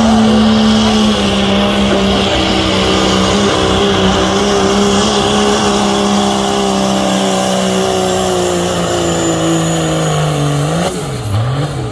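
Pro stock diesel Dodge Ram pickup running flat out while pulling a weight-transfer sled. Its engine note falls steadily as the load builds, with a high steady whistle above it. Near the end the revs waver up and down as it comes off the throttle.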